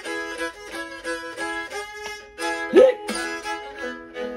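Gourd fiddle playing an old-time melody against a steady drone note, with one sharp rising swoop a little past halfway, the loudest moment.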